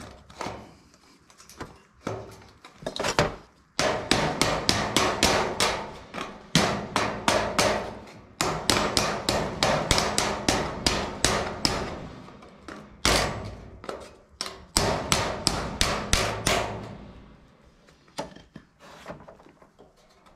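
Claw hammer tapping a galvanized sheet-steel end piece into place in a steel feeder trough, in quick runs of about four blows a second with short pauses. Softer knocks from handling the metal come before and after the hammering.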